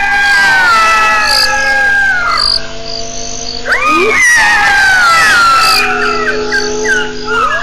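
Hyenas calling: long drawn-out calls that slide down in pitch, with one sweeping sharply upward about four seconds in, and more than one call overlapping.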